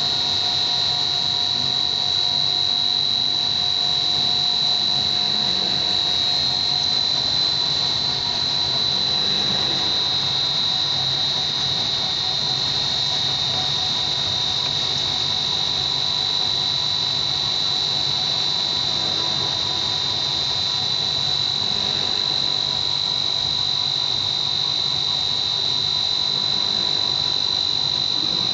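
Snack food extruder running steadily, with a loud constant high-pitched whine over an even machine noise and fainter lower steady tones.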